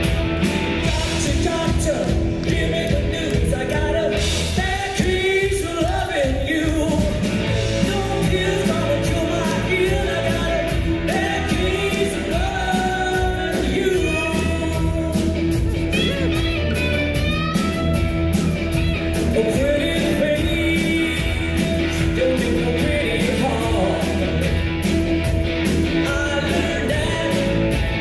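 Live rock band playing: a woman singing lead over electric guitars, bass guitar and drum kit, with a steady drum beat.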